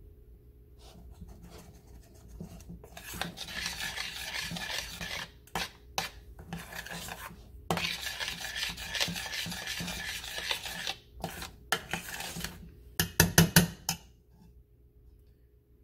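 Metal spoon stirring and scraping thick strawberry syrup against a stainless steel saucepan, in two long stretches of scraping with shorter strokes between. Near the end comes a quick run of four or five sharp metal taps, the loudest sounds, as the spoon knocks against the pan.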